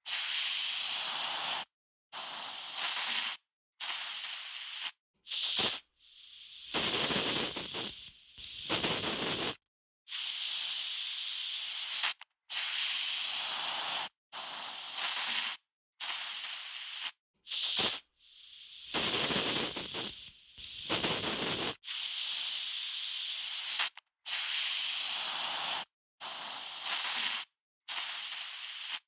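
Aerosol spray can spraying in a series of short hissing bursts, each about one to two seconds long, separated by brief gaps. Two longer sprays, around 7 and 20 seconds in, sound rougher and deeper.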